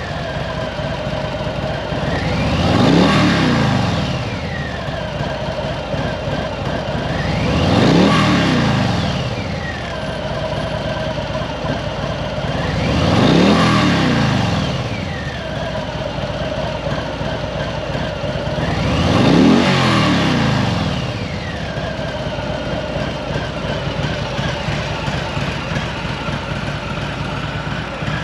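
2020 Harley-Davidson Low Rider S Milwaukee-Eight 114 V-twin at idle, revved four times, each rev rising and falling back over about two seconds, then settling to a steady idle for the last several seconds.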